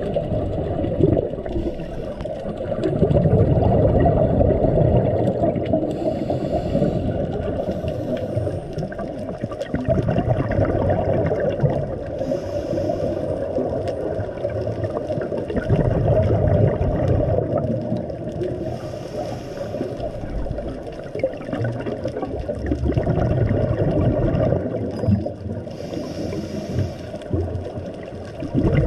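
Muffled underwater water noise picked up through a camera's waterproof housing, a low rumble that swells and fades in a regular cycle every six or seven seconds, with brief hissing patches between the swells.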